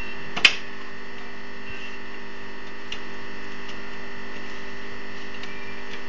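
Steady electrical mains hum, with one sharp click about half a second in and a few faint ticks later, from power-supply connectors and cables being handled inside a desktop PC case.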